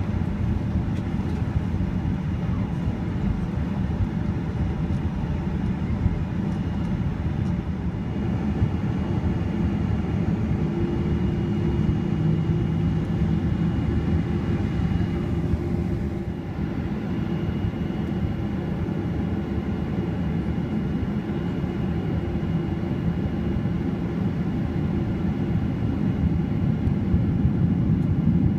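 Cabin noise inside a Boeing 737-800 taxiing, its CFM56 engines at low power: a steady low rumble, with a faint steady hum for a few seconds in the middle and a slight rise in level near the end.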